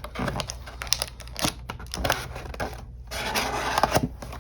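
Hands opening a sealed box of trading cards: cardboard and wrapper scraping and rubbing, with scattered small clicks and a louder stretch of rustling about three seconds in.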